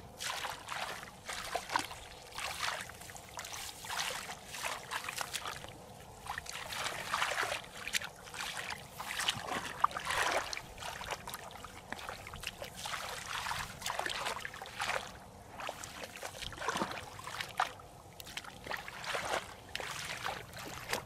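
Hands sloshing and splashing through shallow muddy paddy water, an irregular run of small splashes while groping in the mud for fish.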